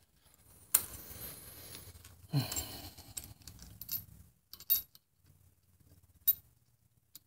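Light metallic clicks and clinks as small bolts and a wire bracket are handled and fitted on a VW 09G automatic transmission's valve body, about half a dozen at uneven intervals.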